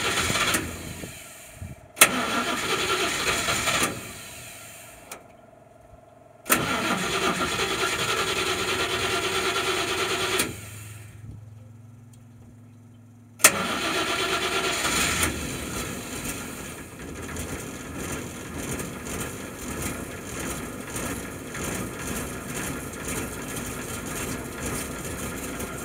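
The M29C Weasel's Studebaker six-cylinder flathead engine cranked on the starter in three bursts, each opening with a click. On the third try it catches, then settles into a steady idle.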